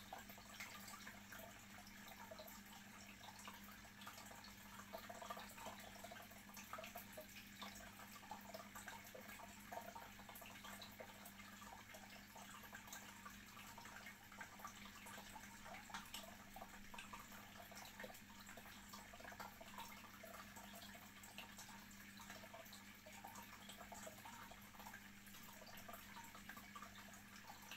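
Faint bubbling and trickling of aquarium water churned with fine air bubbles, over a steady low hum.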